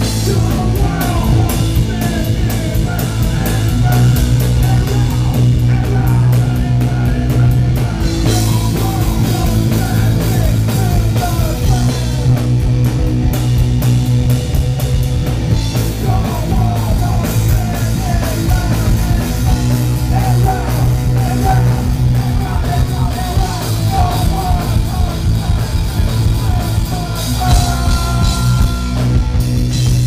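Live rock band playing loud: bass guitar, a drum kit with cymbals, and a singer's vocals.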